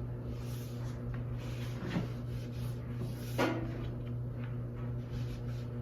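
Wet rag wiping glue squeeze-out off freshly glued wooden boards on a workbench, with two light wooden knocks about two and three and a half seconds in, the second louder, over a steady low hum.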